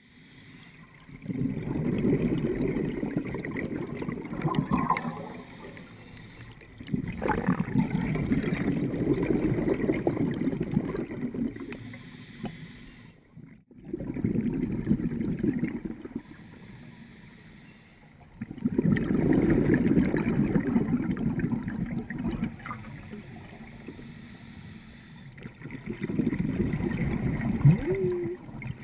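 Scuba diver's regulator exhaust heard underwater: a low, rumbling rush of bubbles with each exhale, five bursts a few seconds apart, with quieter pauses for inhaling between them.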